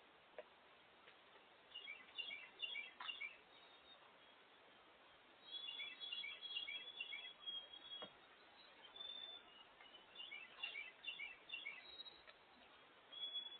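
Small songbirds chirping and twittering faintly, in three bursts of quick high notes, some running into a brief trill, with short pauses between them. A couple of faint clicks.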